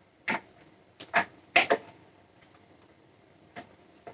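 Sharp plastic clicks and snaps of a motorcycle helmet visor being worked into its side pivot mount: several in the first two seconds, then a couple of fainter clicks near the end.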